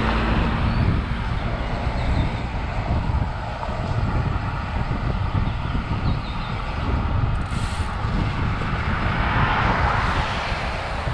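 Wind rumbling over an action camera's microphone while cycling on a road, mixed with road noise. A louder swell of noise comes about ten seconds in.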